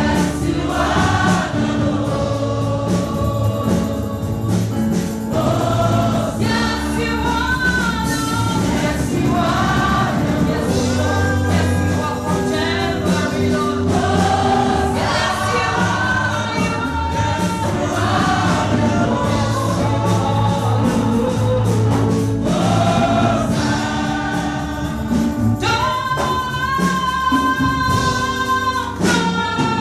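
Gospel choir singing over an instrumental backing with a steady bass line, ending in a long held high note near the end.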